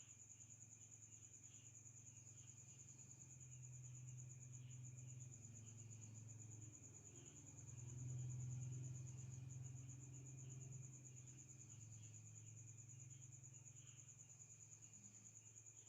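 Faint insect chirping: a steady high trill with short repeated chirps, over a low wavering hum.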